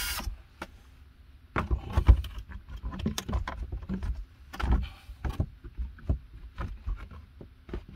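A power drill's whine cuts off just after the start. Then comes a string of irregular knocks, clicks and rustles as the drill and a gable vent are handled against the wooden wall framing.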